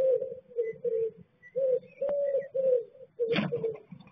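A pigeon cooing in a repeated run of low, steady notes, about two or three a second. Just after three seconds in there is a brief louder scuffle as the blue tit scrabbles up the inside of the nest box.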